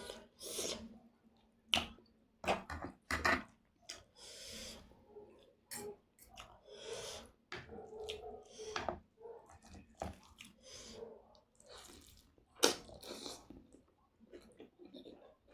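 Close-up mukbang eating sounds: irregular wet chewing and mouth smacks, with short sharp clicks and brief hissy, slurp-like smears between them.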